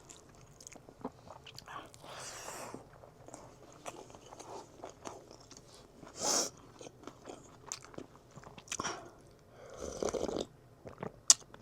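Close-miked eating: chewing with soft mouth clicks and smacks, and a few louder noisy moments about two, six and ten seconds in.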